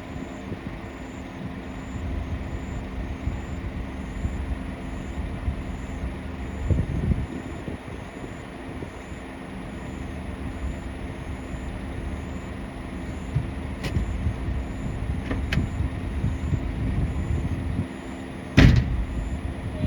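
A vehicle engine running steadily with a low rumble, with two light clicks and one sharp knock near the end.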